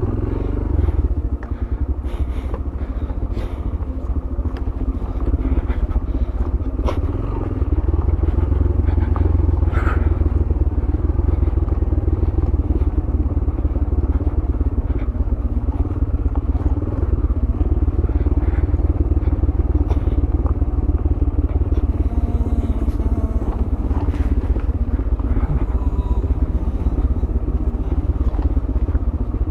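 Yamaha YBR 125G's single-cylinder four-stroke engine running steadily as the motorcycle rides an off-road descent, with scattered knocks and rattles from the bike over uneven ground. It gets a little louder after about seven seconds.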